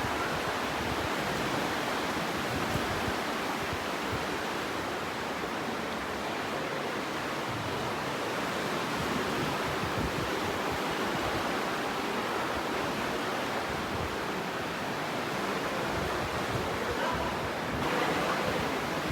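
The Aare river rushing through a narrow rock gorge, a steady, even roar of fast water that grows a little brighter near the end.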